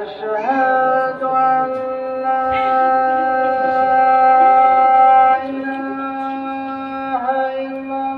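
Muezzin's call to prayer (adhan): a man's voice holding long, steady notes, with a rising glide about half a second in and a short wavering turn near the end.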